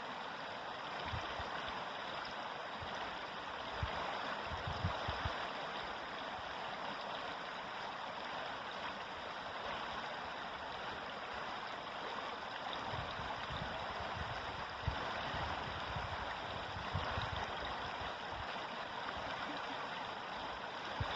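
River water flowing over stones with a steady rushing and gurgling, with a few soft low thuds along the way.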